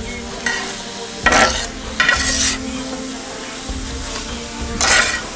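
Chicken dakgalbi sizzling as it fries on a large round griddle pan, while a flat metal spatula scrapes across the pan and turns the food. It makes three loud scrapes: about a second in, two seconds in and near the end.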